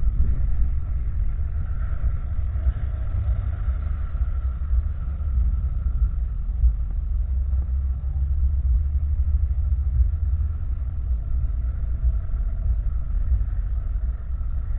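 Honda CG 160 Titan's single-cylinder engine idling steadily through an aftermarket exhaust, with a low, even sound throughout.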